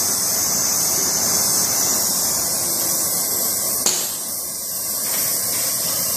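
Oxy-fuel gas welding torch flame hissing steadily while it preheats a brass CM adapter and copper pipe joint for silver brazing, with a single short click about four seconds in.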